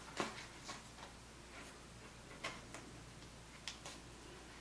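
Light, irregularly spaced clicks and taps from hands handling matboard door pieces and a roll of black masking tape.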